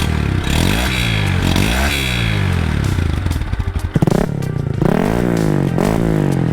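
Honda Grom's small single-cylinder engine revved repeatedly while standing, its pitch climbing and dropping several times, with quicker, sharper blips in the second half.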